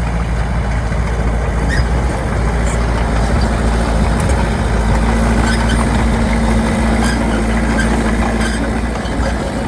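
Bulldozer's diesel engine running steadily with a heavy low rumble. A steadier, higher hum joins about four seconds in and drops out near the end, with scattered light clicks throughout.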